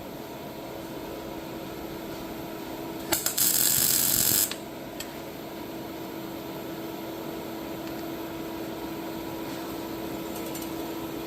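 MIG welder arc crackling in a short burst of about a second and a half, about three seconds in, with the welder's steady hum before and after.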